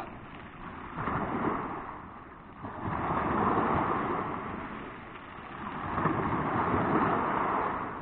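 Small sea waves washing up a pebble beach and drawing back, swelling in surges about every three seconds, with some wind on the microphone.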